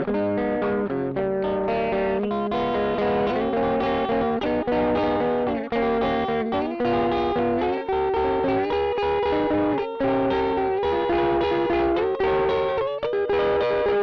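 Schecter electric guitar played through a Caline 'British Sound' overdrive pedal with all knobs at noon, giving a lightly distorted tone. A busy run of quickly changing picked notes and held chord tones.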